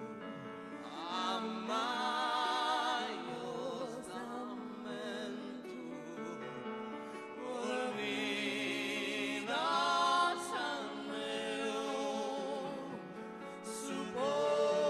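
A woman singing a slow song in Sardinian, holding long notes with vibrato, over piano accompaniment.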